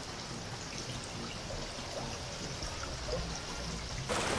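River water running, a steady rushing. About four seconds in it jumps to a louder, closer rush.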